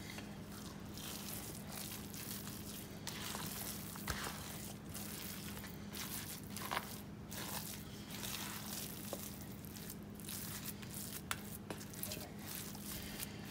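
A spatula folding and stirring moist cornbread dressing in a plastic mixing bowl: soft, irregular squishing and scraping strokes, over a faint steady hum.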